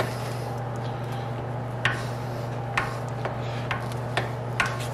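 Sharp metallic clicks from locking pliers and a spot-welded steel test strip held in a bench vise, as the strip is worked back and forth to break the weld. One click comes at the start, then a run of clicks about every half second from about two seconds in, over a steady low hum.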